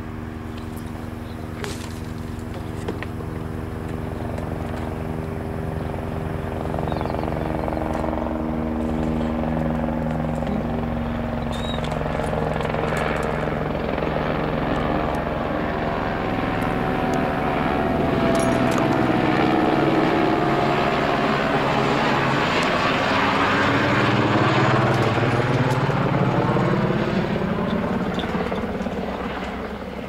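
AS 355 Ecureuil twin-engine helicopter flying in and passing close, its rotor and turbine sound growing steadily louder for about twenty seconds, then easing off near the end.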